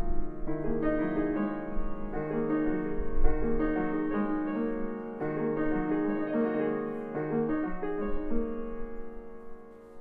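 An 1897 Chickering 109C grand piano with its original recrowned soundboard being played: a slow passage of held chords that change about once a second, growing softer near the end.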